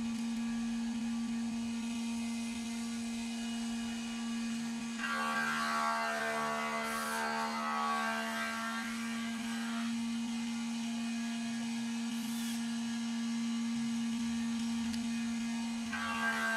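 Cordless drill running into a shelf board, a steady motor whine from about five to ten seconds in and again near the end, over a constant low hum.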